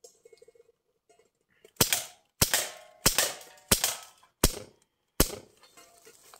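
Crosman C11 CO2 BB pistol fired six times in a quick, even string, a sharp pop about every two-thirds of a second, starting about two seconds in.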